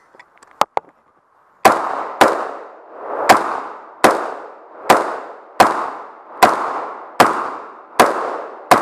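Rifle fired in a string of about ten shots, fairly evenly spaced at roughly one shot every three-quarters of a second, starting under two seconds in. Each shot is followed by a ringing echo.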